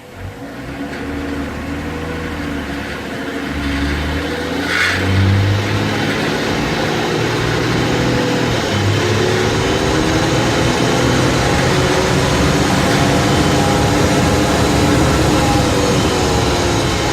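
Mazda CX-9 pulling away and accelerating through its gears, the engine climbing in pitch with a few steps, then settling into a steady run with road noise. A brief high chirp comes about five seconds in. Through the steady run, tones slowly rise and fall in pitch: the strange noise that the owner puts down to the rear differential.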